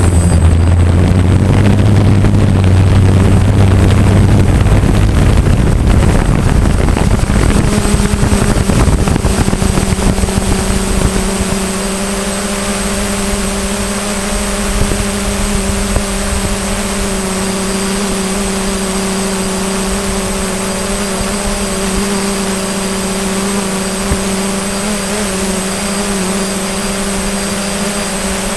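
DJI Phantom quadcopter's motors and propellers humming steadily in flight. The sound is rougher and louder with a low rumble for the first ten seconds or so, then settles into an even, multi-pitched drone with a thin high whine above it.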